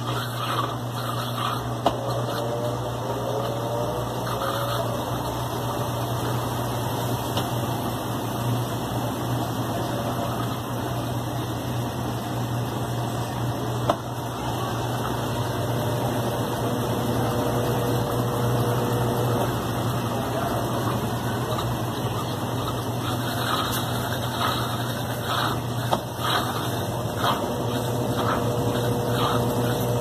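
Consul CWB12 top-loading washing machine in its spin cycle: the motor hums steadily while the basket whirs at speed, growing slightly louder toward the end.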